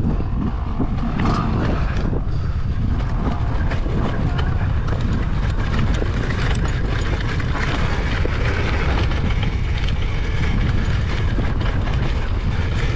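Enduro motorcycle rolling down steep, rough ground: a steady low rumble from the bike, broken by many short knocks and rattles as it bumps over the tussocks.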